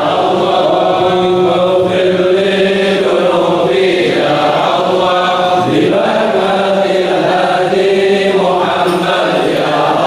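A group of men chanting a prayer together, in long held notes that rise and fall in phrases.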